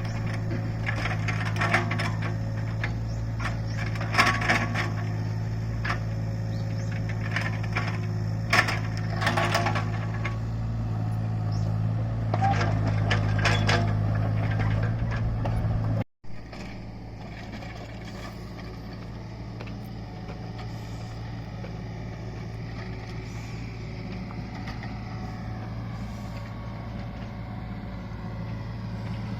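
Hydraulic excavator's diesel engine running steadily while its toothed (claw) bucket digs into the slope, giving repeated crunching and scraping cracks through the first half. After a brief dropout about halfway, the engine runs on with only a few impacts.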